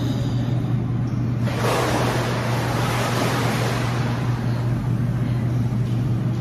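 Water splashing and sloshing in an indoor swimming pool, rising from about one and a half seconds in as a swimmer comes up out of an underwater handstand, over a steady low hum.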